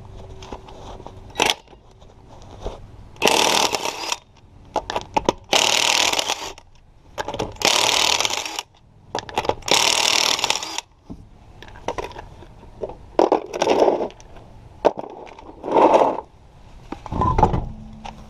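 Cordless impact wrench hammering the lug nuts loose on a car wheel in four bursts of about a second each, followed by a few shorter, lower bursts. A low thump comes near the end.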